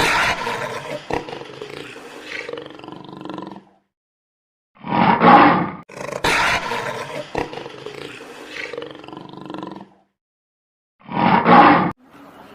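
Lion roaring: a long roaring call followed by a short, louder one, the pair heard twice with silent gaps between.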